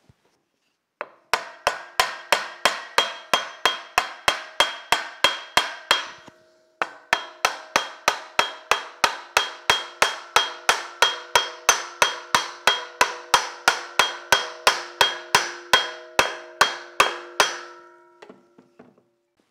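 Steady hammer blows, about three a second, driving an aluminium step pulley onto an electric motor's shaft through a piece of wood. Each blow leaves a brief metallic ring. There is a short break about six seconds in, and the blows stop a couple of seconds before the end.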